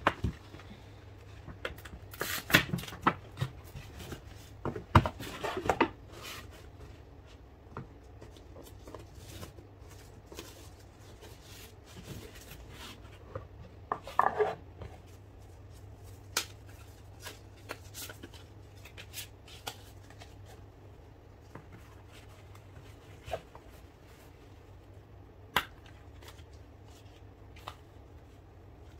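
Hands handling paper and cardboard packaging: a paper shopping bag, a cardboard gift box and tissue paper rustling and crinkling, with taps and clicks, busiest and loudest in the first six seconds. A short rustle comes about halfway through, then only occasional soft taps and clicks as a leather wallet is handled.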